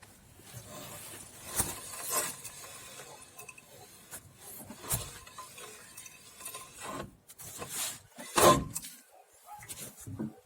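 Scattered metallic clinks and knocks of tools and parts during work on a car's rear brake drum, with a few sharper knocks spread through.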